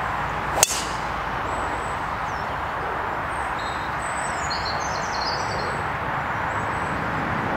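A golf driver striking a teed ball: one sharp crack with a short ring less than a second in. A steady outdoor background hiss follows, with a few faint bird chirps about four seconds in.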